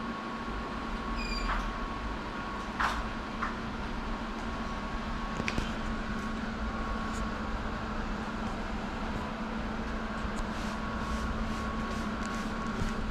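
Large-format inkjet printer running as it prints a banner: a steady mechanical hum with a faint high held tone and a few light clicks.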